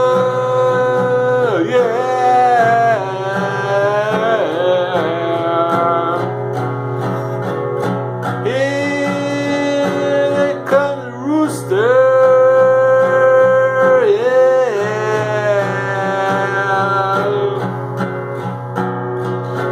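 Male voice singing long held, wavering notes over a strummed acoustic guitar.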